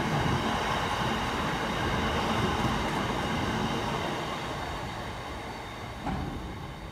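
Freight train of bogie hopper wagons rolling past at speed, a steady rumble of wheels on rail that fades as the end of the train goes by. A single sharp knock about six seconds in.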